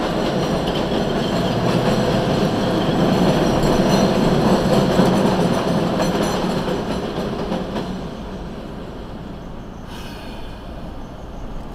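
Elevated subway train passing overhead, its wheels rattling and squealing on the track, heard from inside a car. It swells to its loudest about four to five seconds in and fades away after about eight seconds.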